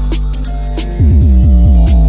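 Background music with a steady beat. About a second in, a bass line of short falling notes comes in.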